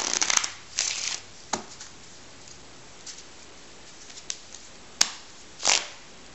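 A deck of playing cards being riffle-shuffled on a table mat: two quick rustling riffles in the first second, then scattered flicks and taps as the deck is squared, a sharp click about five seconds in and another riffle just after it.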